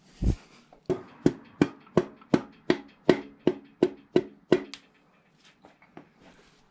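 A piston being tapped down through a ring compressor into the cylinder bore of a small-block Chevy V8: one dull thud, then about a dozen sharp, even knocks at roughly three a second, which stop a little before the end.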